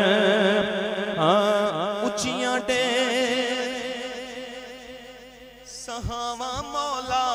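A man singing a Punjabi devotional hymn in long, wavering melismatic notes over a steady low held tone. The voice fades about five seconds in, then swells again.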